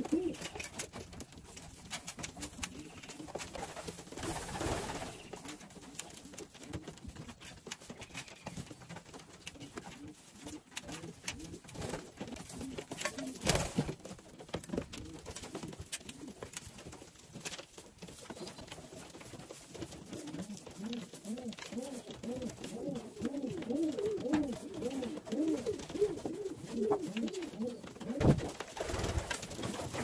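Young racing pigeons cooing in a loft, the repeated cooing building up in the last third, over many small clicks and taps of birds pecking grain from a metal trough.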